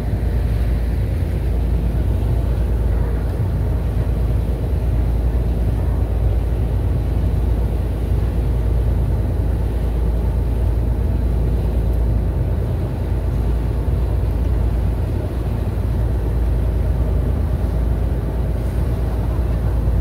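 Steady low rumble of a ferry's engine running under way, heard from the open deck.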